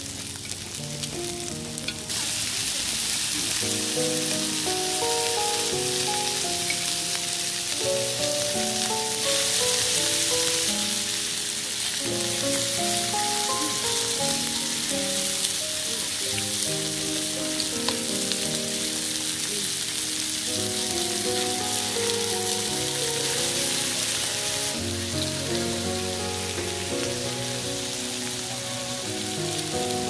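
Pork belly and onions sizzling on a round griddle pan over a portable gas stove, a steady frying hiss that grows louder about two seconds in. A soft melody plays underneath.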